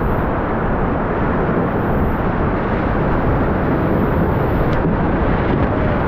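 Whitewater rapids rushing under a raft, a loud steady rush of noise mixed with wind buffeting the microphone.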